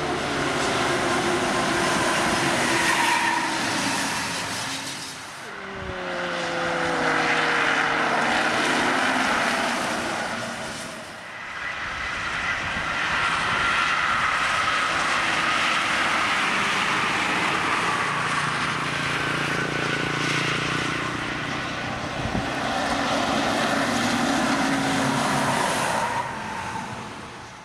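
Trucks and buses passing one after another on a concrete highway, engine and tyre noise swelling as each approaches and fading as it goes. Around a quarter of the way in, a passing engine's tone falls in pitch as it goes by.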